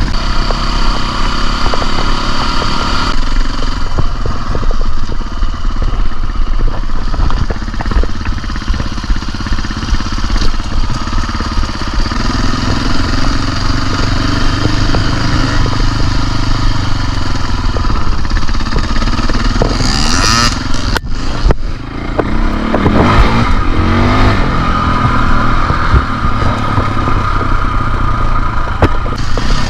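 KTM dirt bike engine running on a trail ride, its pitch rising and falling with the throttle, with scattered knocks and rattles.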